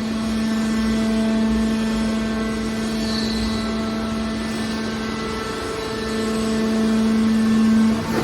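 Hydraulic power unit of a scrap car baler running with a steady droning hum. The hum grows stronger around six seconds in, then cuts off just before the end.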